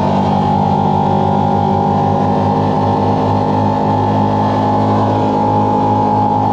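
Engine of a track-equipped side-by-side UTV running steadily under way, heard from on board: a constant drone with a steady whine held above it.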